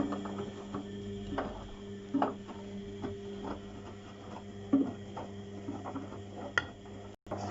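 Beko front-loading washing machine running with a steady motor hum and irregular knocks and clicks from the slowly turning drum.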